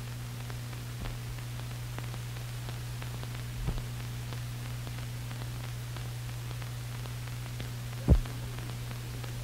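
Steady low hum and hiss of an old film soundtrack with faint crackle, broken by two short low thumps about four and eight seconds in.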